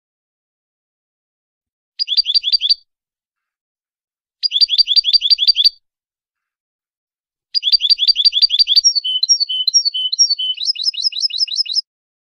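European goldfinch singing the 'malqa' competition song, a recording used to train goldfinches for singing contests. Three phrases of fast repeated high notes with silent gaps between them: a short one about two seconds in, a longer one near the middle, and the longest from about three-quarters through to near the end, shifting into alternating notes and a final quick run.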